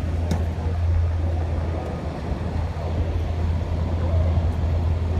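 A steady low engine rumble, like a vehicle or machine running.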